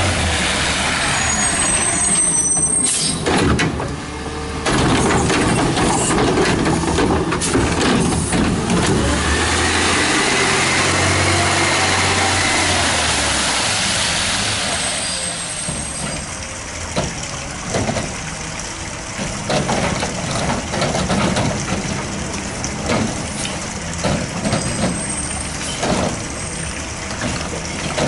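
Compressed-natural-gas AutoCar ACX garbage truck driving past close by, its engine and tyres making a steady roar with air-brake hisses. The noise is loudest for the first half and falls off after about fifteen seconds, leaving a quieter rumble with scattered knocks and clatter.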